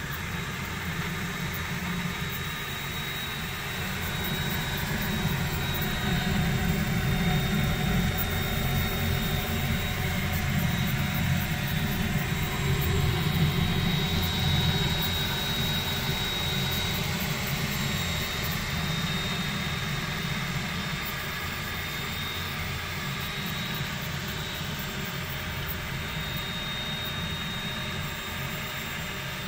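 Voron 2.4 R2 3D printer running: a steady whir of fans and motors with a thin high whine over it. It gets louder for several seconds in the middle.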